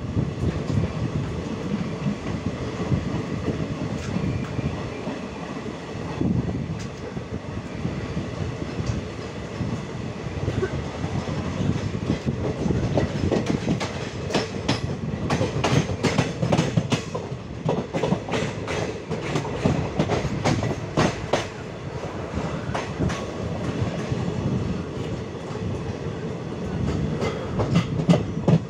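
Moving passenger train's coach wheels clattering along the track over a steady rumble, heard from an open coach window. About halfway through comes a quick run of sharp clicks and knocks as the wheels cross a set of points.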